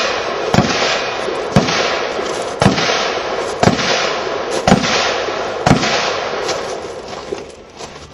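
AR-15-style carbine fired six times at a steady pace of about one shot a second, each shot followed by a long echoing ring.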